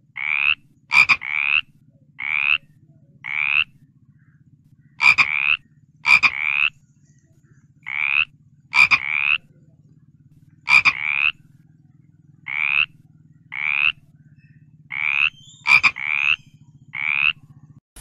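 A frog croaking again and again: short rasping calls of about half a second each, coming singly or in quick pairs, several of them opening with a sharp click. A faint low hum runs underneath.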